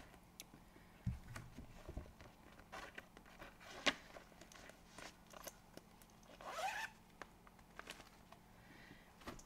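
Faint handling noise of cross-stitch supplies being sorted: light rustles and clicks, a soft thud about a second in, and a short zipper-like rasp about six and a half seconds in.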